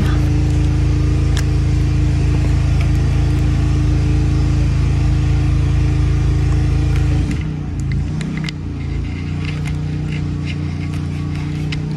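A loud, steady low mechanical hum with a fixed pitch. About seven seconds in it changes to a slightly quieter, different hum, and a few light clicks sound over it.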